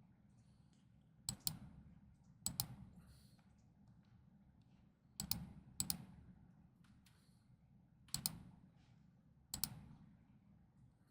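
Computer mouse clicking: a scattering of faint, sharp clicks, several in quick pairs, a second or more apart.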